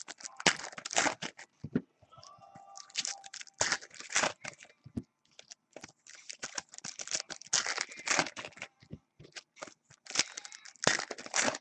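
Trading card pack wrappers being torn open and crinkled by hand, in a run of irregular crackling tears and rustles with short pauses between them.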